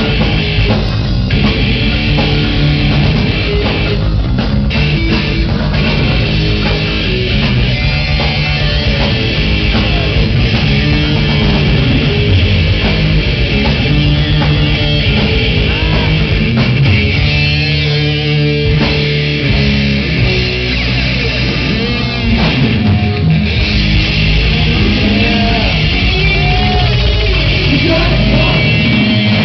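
Crossover thrash band playing live and loud: distorted electric guitar over bass and drum kit.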